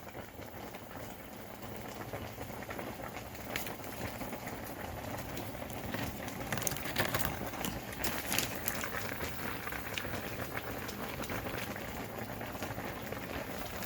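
Large pot of crawfish boil bubbling at the boil, a steady seething hiss with scattered sharp pops.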